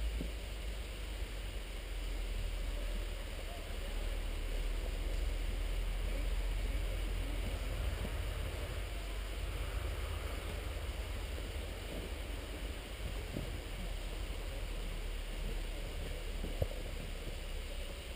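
Wind buffeting the microphone: an uneven low rumble with a faint rushing haze above it, and a single short knock near the end.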